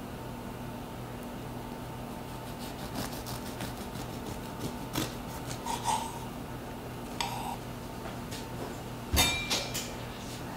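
Light clicks and knocks of kitchenware being handled on a counter, over a steady low hum. Near the end comes one loud clank that rings briefly, as a metal utensil or pan is set down hard.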